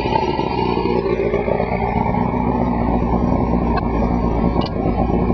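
1970 Evinrude 115 hp V4 two-stroke outboard motor running steadily during a shifting demonstration, with two faint clicks about four seconds in.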